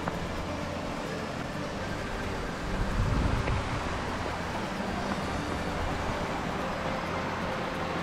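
Steady rush of a small waterfall pouring into a deep rock pool, with a brief low rumble about three seconds in.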